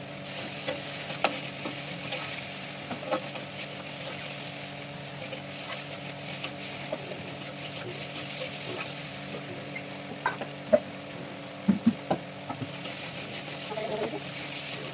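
Food sizzling as it fries in oil in a pan, with a spatula or spoon clicking and scraping against the pan now and then and a couple of louder knocks about eleven seconds in. A steady low hum runs underneath.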